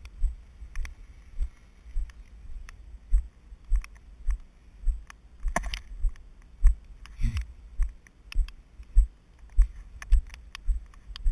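Raindrops striking the camera's housing: irregular dull taps and thuds, roughly one or two a second, with a couple of louder splashes about halfway through.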